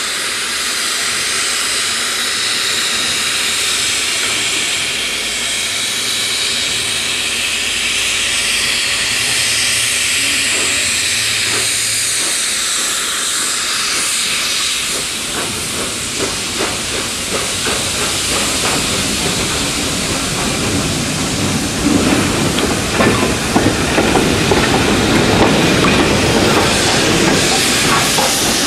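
Steam locomotive 'Duke of Gloucester', a three-cylinder BR Standard Class 8 Pacific with Caprotti valve gear, getting under way. At first there is a steady loud hiss of escaping steam. About halfway through, its exhaust beats start and grow louder and heavier as the engine draws close and passes.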